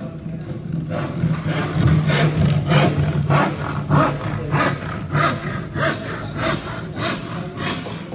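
A hand tool worked back and forth on wood in repeated rasping strokes, about two a second, over a steady low hum.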